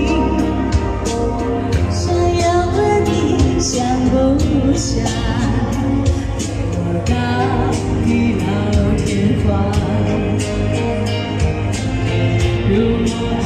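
A woman singing a Chinese pop song into a microphone over a backing track with a steady beat.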